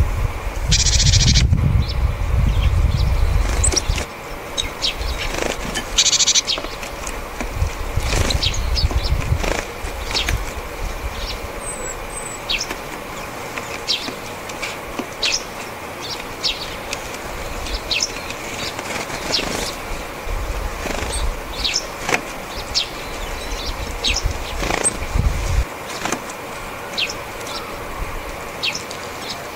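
Japanese tits flying to and from a seed feeder close by: their wings flutter in bursts, loudest in the first few seconds, among many short, high calls.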